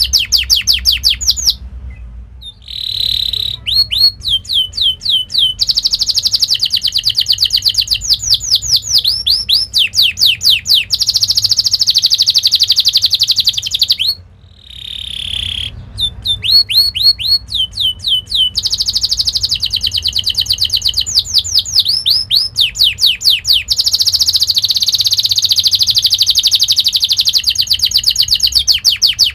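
Domestic canary singing a long, fast song: runs of sharp sweeping notes, several a second, alternate with rapid rolling trills. The song breaks off briefly twice, about two seconds in and about fourteen seconds in.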